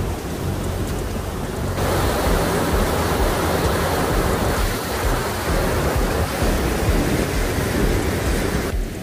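Whitewater of the Waikato River rushing through Huka Falls, a steady, dense water noise that grows louder about two seconds in and falls away near the end.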